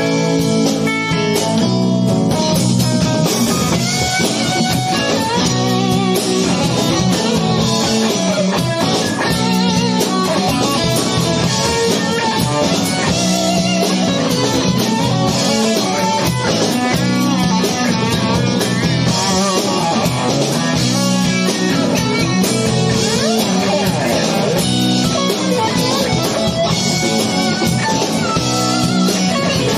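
A rock band playing live: electric guitar and electric bass over a drum kit, at a steady full level.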